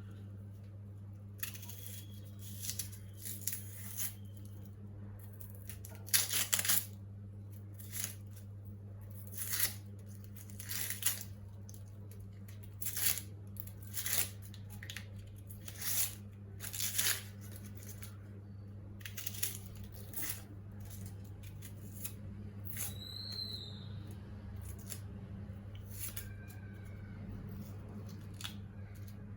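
A series of short scraping or cutting strokes, about one every second or so, which stop near the end, over a steady low electrical hum.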